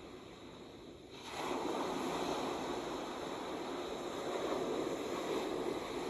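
Ocean surf on a sandy beach: a steady wash of water, quieter at first, then a wave breaks about a second in and its foam rushes in loudly.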